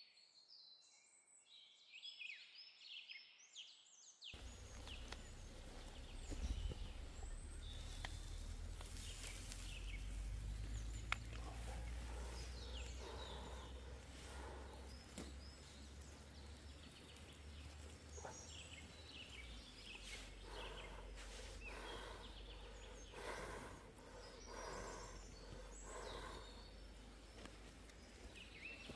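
Small songbirds chirping in short, scattered calls over a steady low rumble, with a few faint knocks and rustles.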